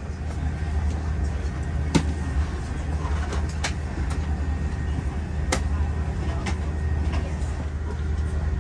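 Steady low rumble of an Airbus A340 airliner cabin on the ground before takeoff, with a few sharp clicks.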